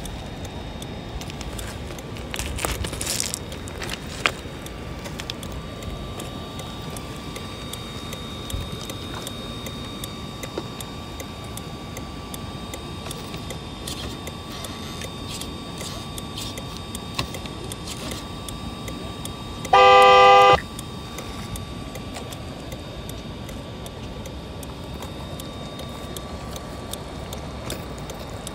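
1/10-scale RC crawler sound module playing a simulated V8 engine, a steady low running sound under a faint steady whine. About two-thirds of the way through, a horn toots once for under a second, the loudest sound here.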